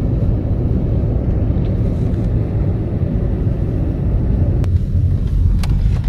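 Steady low rumble of a car driving, heard from inside the cabin: engine and tyre noise on the road.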